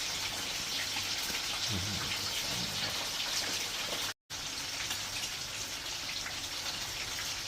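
Fish frying in hot oil: a steady sizzle with fine crackling. The sound breaks off for an instant a little past halfway.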